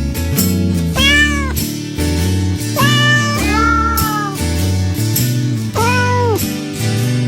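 Domestic cat meowing four times, each call rising and then falling in pitch, over background music with a steady bass line.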